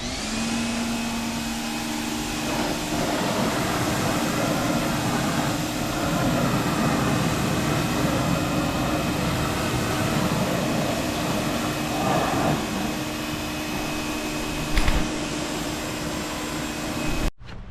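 Pressure washer running steadily: a motor hum under an even hiss of spray, with a sharp knock about fifteen seconds in.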